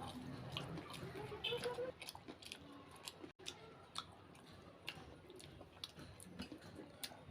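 A person chewing a samosa, with irregular small crunches and wet mouth clicks.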